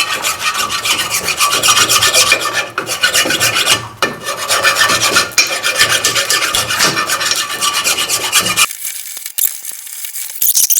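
Hand file scraping back and forth over a Toyota Corolla's front brake caliper bracket to clean it, in fast, continuous rasping strokes that stop near the end.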